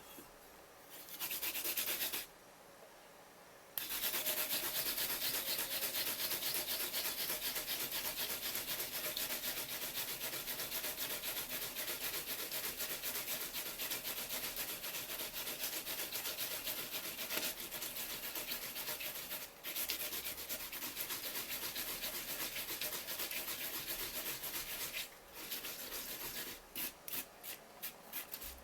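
Fast, continuous scraping or rubbing on a surface, a rasping sound kept up for about twenty seconds with a couple of brief breaks, ending in a few short separate strokes.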